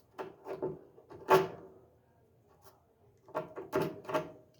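Short wooden knocks and clatters as thin wood slivers are worked into a door's stripped hinge screw holes, in a few quick groups with the sharpest knock about a second and a half in.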